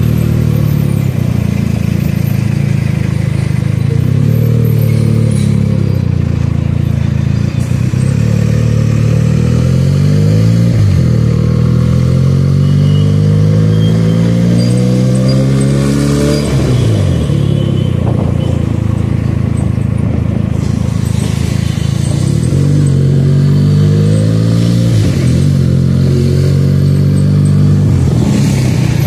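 Benelli 300 motorcycle's parallel-twin engine under way in traffic, rising in pitch as it accelerates and dropping sharply at each upshift, several times over.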